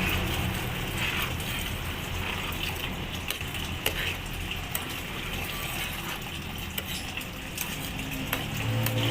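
Scattered light clicks and clinks of kitchen items being handled, over a steady low hum.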